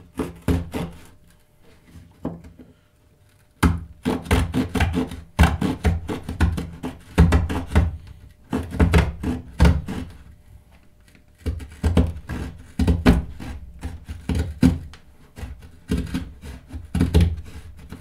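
The small double-tooth saw edge of a steel credit-card multi-tool sawing through a thin wooden strip. Quick back-and-forth strokes come in bursts, with two short pauses.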